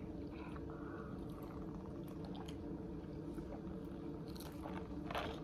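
Faint eating and food-handling noises, small clicks and short soft rustles, over a steady low room hum, with a couple of louder noisy bursts near the end.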